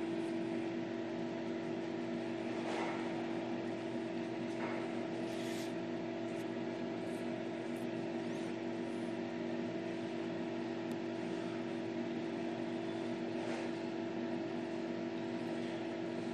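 Steady mechanical hum of a small motor, like a fan, running without change in pitch.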